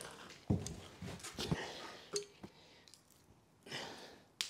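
A few soft clicks and knocks from a caulking gun being squeezed and handled while it lays a bead of silicone, with a breath near the end.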